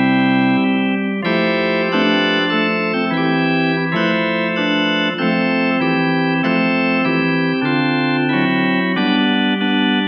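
CollaB3 virtual tonewheel organ, a Hammond B3 emulation, playing full sustained chords on its 'Retro Pipes' preset. One held chord, then a run of chord changes about twice a second.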